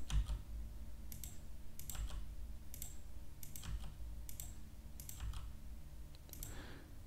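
Computer mouse button clicks and keyboard key presses, short light clicks about once a second, over a steady low hum.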